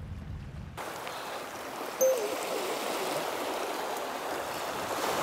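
Shallow sea water washing in over a rocky shore, a steady rushing that starts about a second in, as the tide comes in. A brief pitched blip sounds once about two seconds in.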